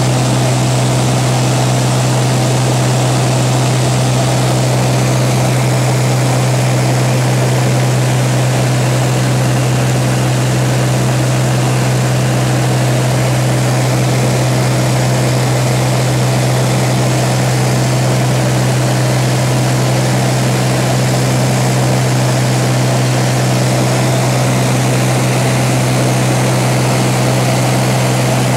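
Seaplane's propeller engine running steadily in flight, heard from inside the cabin: a loud, unchanging low hum under a broad rushing hiss.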